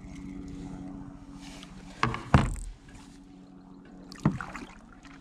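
Hollow knocks on a plastic kayak hull as a fishing rod is handled beside the bow: two close together about two seconds in and one more near the end. A steady low hum runs underneath.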